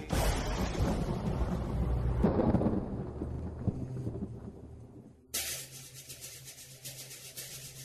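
A sudden, loud rumbling crash like thunder that fades away over about five seconds, followed by a steady high hissing like rain that cuts in abruptly, played as a sound effect in a dance soundtrack.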